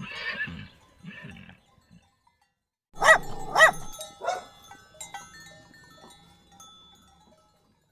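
A dog barking: two loud barks about half a second apart, then a third, weaker one.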